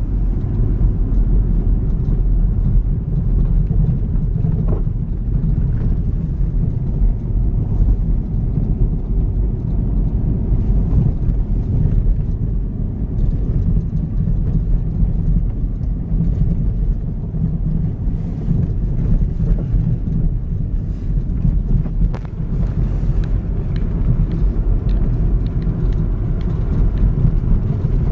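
Steady low rumble of a car on the move: engine drone and tyre noise on a snowy road, with a few faint ticks.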